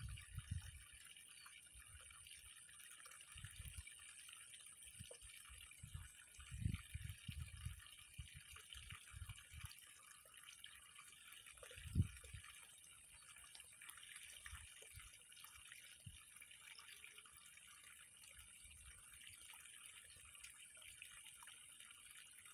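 Near silence: faint steady outdoor ambience with a thin high hiss, broken by a few soft low thumps at the start, a few seconds in and once about twelve seconds in.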